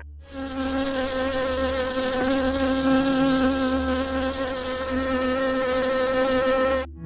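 Wasps buzzing: one steady, even hum that cuts off suddenly near the end.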